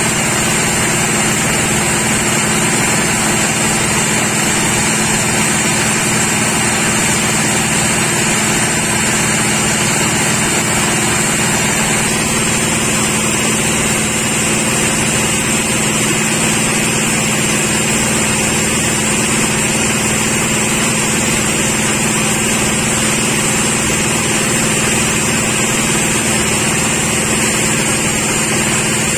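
Sawmill machinery running steadily: a constant loud mechanical hum with no let-up or change in pitch.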